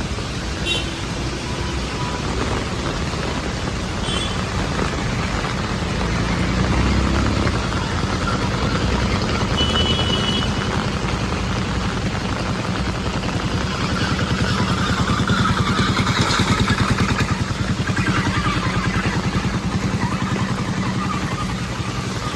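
Street traffic: a vehicle engine runs steadily, and the sound swells for a few seconds about two-thirds of the way through as traffic passes.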